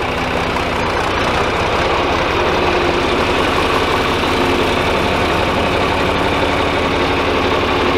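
John Deere farm tractor's engine running steadily at a constant speed, with a fast, even low throb.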